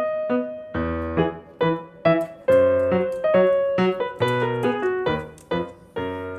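Background music: a bouncy electric piano or keyboard tune of short struck notes.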